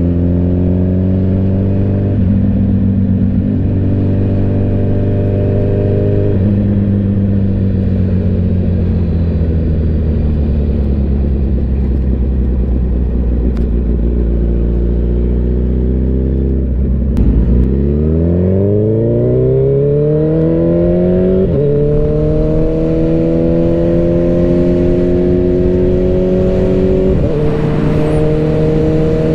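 Suzuki Hayabusa's inline-four engine heard from the saddle, running steadily at cruising speed for the first half. Just past halfway the pitch dips briefly, then climbs steeply under hard acceleration, with two upshifts where the pitch steps down and climbs again.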